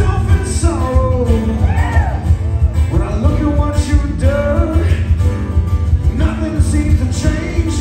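Live acoustic band: several strummed acoustic guitars with a male lead vocal singing a drawn-out, gliding melody, over a heavy, booming low end.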